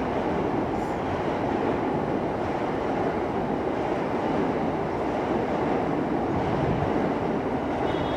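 Seibu Ikebukuro Line train passing close by at a level crossing, a steady, unbroken running noise without rises or breaks.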